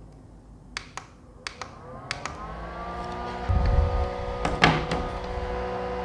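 Clicks at the controls of a mini evaporative air cooler fan, then its small fan motor spins up, rising in pitch and settling into a steady hum. Around the middle, a dull thump and a clatter as the plastic unit is handled and turned around.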